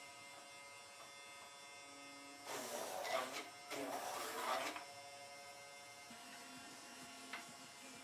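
Homemade four-spindle drilling machine for beehive frames: its small electric drill motors hum steadily, and twice, for about a second each, the bits drill into a wooden frame bar with a loud whirring cut. A light tap comes near the end.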